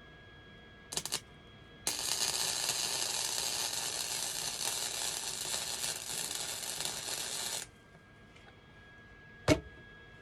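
MIG wire-feed welder arcing as a bolt is welded to a go-kart steering knuckle. It gives a short burst about a second in, then a steady crackling bead for about six seconds that stops abruptly. A single sharp knock comes near the end.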